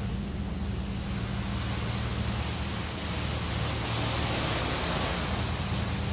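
Ship's engine running under way with a steady low drone, under a constant hiss of wind and water that grows louder about four seconds in.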